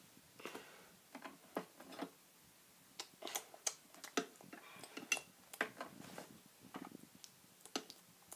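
Irregular light clicks and taps of small plastic toy figures and a toy plate being handled and set down on a hard toy tabletop.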